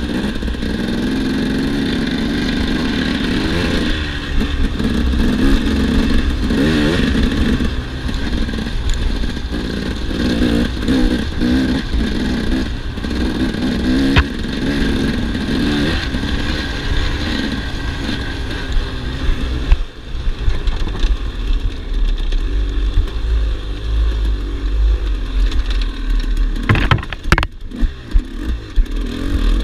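2008 KTM 300 EXC two-stroke single-cylinder engine being ridden hard, revving up and down with the throttle, with the clatter of the bike over rough ground. The revs drop off briefly about two-thirds of the way through, and a few sharp knocks come near the end.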